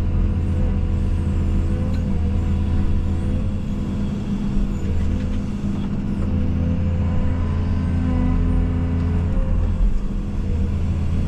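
Case CX220E excavator's diesel engine running steadily under working load, a low drone that eases off briefly a couple of times and picks back up as the hydraulics are worked.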